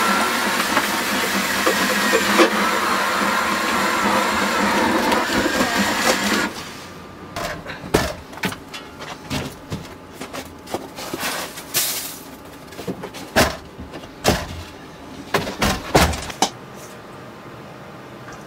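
Power ice auger drilling a hole through lake ice, running steadily and then stopping abruptly about six and a half seconds in. Scattered knocks and scrapes follow.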